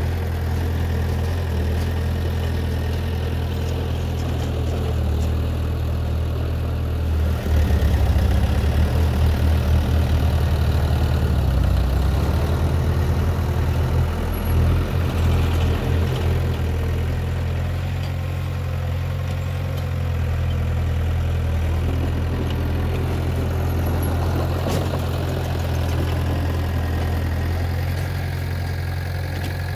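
Heavy earthmoving machine's diesel engine running at a steady idle, then working harder and louder with a quick pulsing beat for about eight seconds a quarter of the way in, before settling back to idle.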